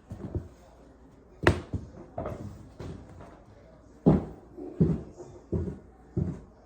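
A series of irregular dull thumps and knocks, roughly one every half second to second, the loudest about a second and a half in and about four seconds in.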